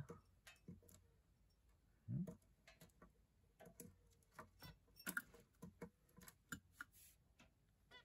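Near silence broken by faint, irregular ticks and taps from small birds pecking and shifting in and on a glass tank, with a short low sound about two seconds in.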